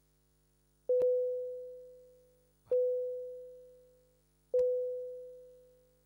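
A single-pitched bell struck three times, about two seconds apart, each stroke ringing out and fading. These are the chair's strokes calling the committee session to order just before the opening address.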